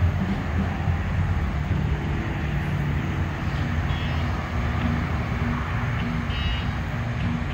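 Car engine running, a low steady rumble.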